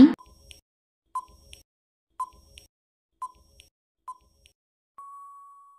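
Countdown timer sound effect: five short beeps about a second apart, each followed by a faint tick, then one longer steady beep near the end marking time up.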